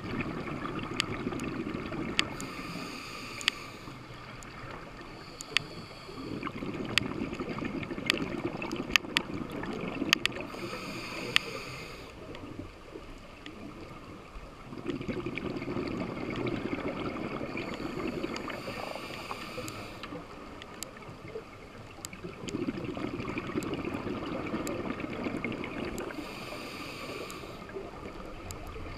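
Scuba diver breathing through a regulator, heard underwater: a short hiss on each inhale, then a longer rumble of exhaled bubbles, in a slow cycle of about four breaths. Scattered sharp clicks run throughout, typical of snapping shrimp on a reef.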